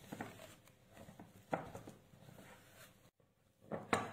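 Silicone spatula scraping and stirring flour into cookie dough in a glass mixing bowl, with a few short knocks of the spatula against the glass.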